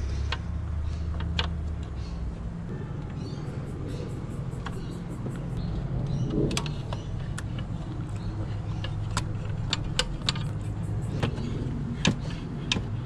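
Scattered clicks and knocks of hoses and the top-mount intercooler being pulled loose and lifted out of a Subaru WRX engine bay, over a steady low hum.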